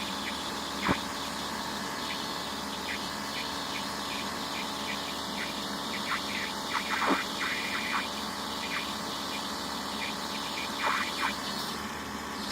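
Excavator engine running steadily, with one sharp knock about a second in and scattered short higher-pitched sounds over the top.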